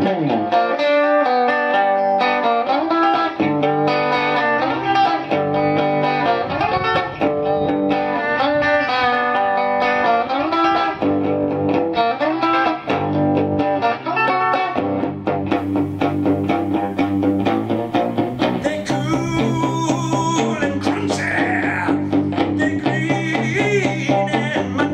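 Live electric guitar playing a bluesy riff, with a man singing near the end.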